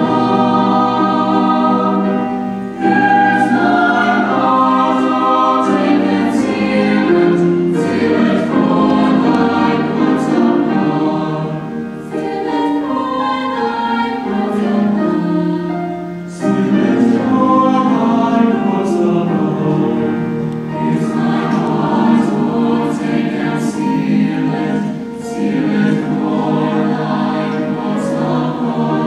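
Mixed choir of teenage voices, boys and girls, singing in harmony.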